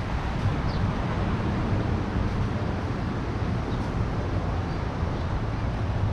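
Steady beach ambience: a low rumble and hiss of surf, with wind buffeting the microphone.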